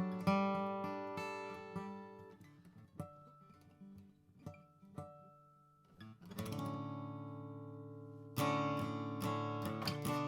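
2001 Gibson J-45 slope-shouldered acoustic guitar being played: a chord rings and slowly fades, then soft single notes are picked, and fuller chords are struck near the end.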